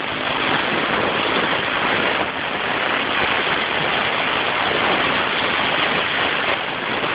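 Fire-truck-shaped compressor nebulizer running during a cough treatment. Its motor and air flow make a steady, even hiss that does not change or break.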